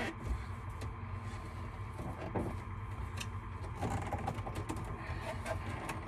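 Plastic dash trim panel in a Kenworth truck cab being pressed and worked into place, with scattered clicks and creaks. The panel seems kind of loose. A steady low hum runs underneath.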